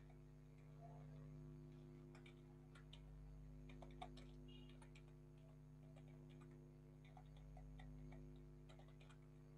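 Faint, scattered clicks of computer keys being typed, over a steady low electrical hum.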